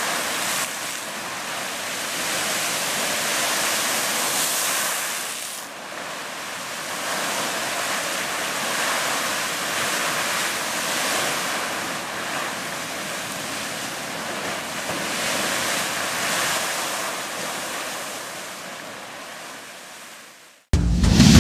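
Fountain Geyser erupting: a continuous rush of splashing water and venting steam that swells and eases, mixed with wind on the microphone. It fades away over the last couple of seconds, and loud music cuts in sharply at the very end.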